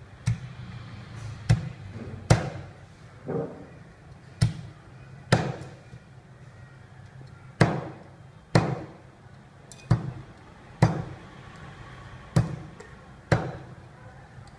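Cleaver chopping roast goose on a wooden chopping board: about a dozen sharp chops, roughly one a second, with a longer pause near the middle.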